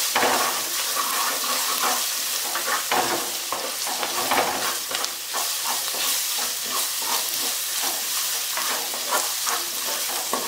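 Chopped shallots, green chillies, curry leaves and ginger-garlic paste sizzling in hot oil in a black pot, with a wooden spatula stirring and scraping through them in quick, irregular strokes. They are being sautéed until the raw smell of the ginger-garlic cooks off.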